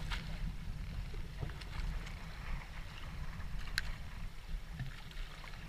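Steady low rumble of a small outrigger fishing boat at sea, with two sharp clicks: one right at the start and one about four seconds in.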